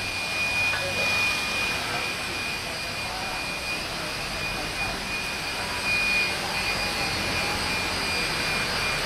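Steady high-pitched whine over a constant hiss from tyre-shop machinery, cutting off just after the end.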